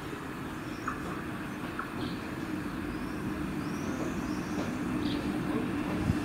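Double-deck regional train approaching the platform, its rumble and steady hum slowly growing louder. A few faint short chirps sound above it.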